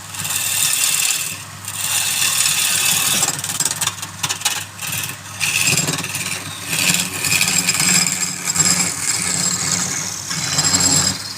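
Wood lathe running with a steady motor hum while a turning tool cuts the spinning wood: a hissing scrape that swells and drops back every second or two as the tool is worked.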